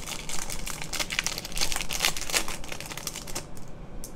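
Foil trading-card pack wrapper crinkling as it is handled and opened by hand: a dense crackle for about three and a half seconds that then dies away.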